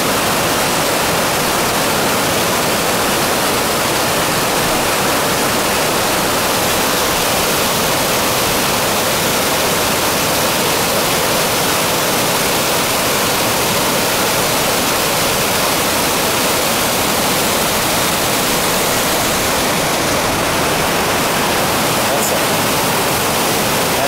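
Waterfall: white water pouring down over smooth rock slabs, a loud, steady rushing with no break.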